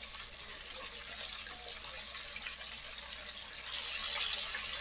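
Chicken pieces deep-frying in hot oil, a steady sizzle that grows louder about four seconds in.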